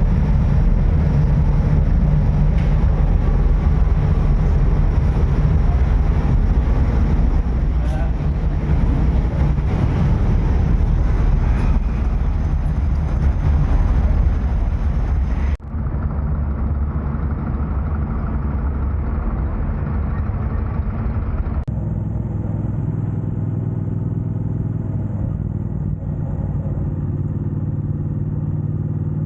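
Motorcycle riding on the road: a steady engine drone with wind and road noise on the microphone. The character of the sound changes abruptly twice, once about halfway through and again later.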